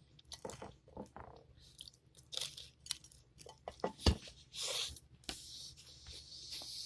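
A person chewing a mouthful of pizza close to the microphone: irregular crunches and wet mouth clicks, with one louder crunch about four seconds in.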